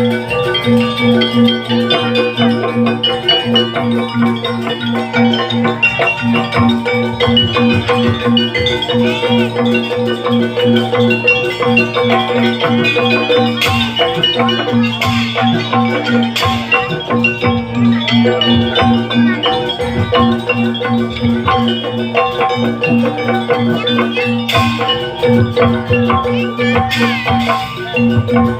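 Live jaranan gamelan music: struck metal mallet instruments play interlocking melodies over a low note repeated at a steady pace, with occasional sharp percussion strokes.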